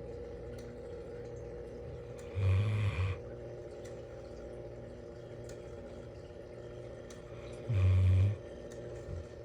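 Bloodhound snoring: two deep snores about five seconds apart, each under a second long, over a steady background hum.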